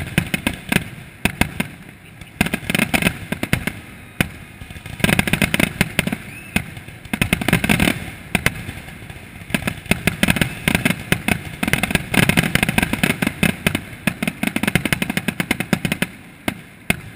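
Fireworks display: a dense barrage of rapid cracks and bangs coming in waves a few seconds apart, thinning out near the end.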